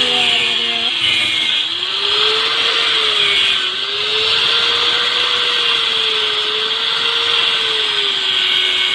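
Handheld electric angle grinder cutting through a tyre's steel bead wire where it meets the alloy rim: a steady grinding hiss over the motor's whine. The whine sags and recovers slowly as the disc bites under load.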